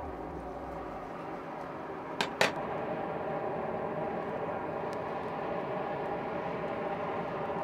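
Air blower feeding a charcoal forge, running with a steady whirring hum as the fire flares, with two sharp clicks a little over two seconds in.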